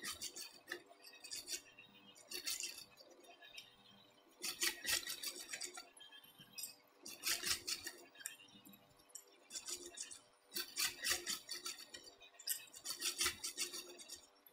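Sewing machine stitching in several short runs of about a second each, its needle and hook clicking fast, stopping and starting between runs over a steady faint hum.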